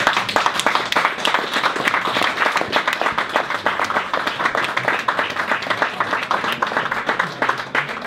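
Small audience applauding, a dense patter of many hands clapping.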